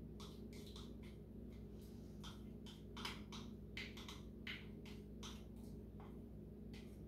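A spatula scraping bacon fat out of a small glass bowl into a skillet: faint, irregular clicks and scrapes, a few a second, over a low steady hum.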